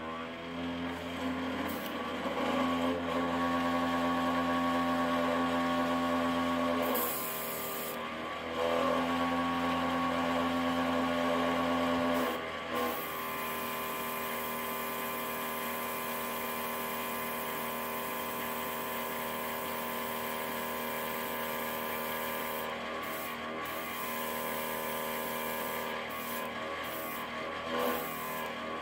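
Small airbrush compressor running with a steady electric hum, its tone shifting a few times as the airbrush is used. A short hiss of air comes about seven seconds in.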